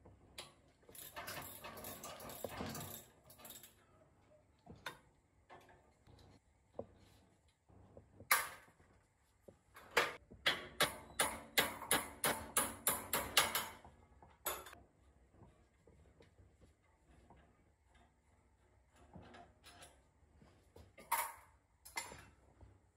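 Hand-tool work in a workshop: a rough scraping stretch near the start, then scattered single clicks and a run of quick, regular sharp clicks, about four a second, lasting several seconds.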